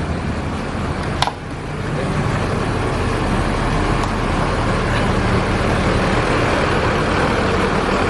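Mercedes-Benz tour bus's diesel engine running steadily with a deep hum. There is a sharp click about a second in, and after it the engine sound is a little louder.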